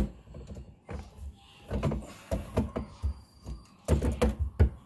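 Channel-lock pliers gripping and turning plastic slip nuts on a sink drain, giving scattered clicks and knocks, with a quicker run of them near the end.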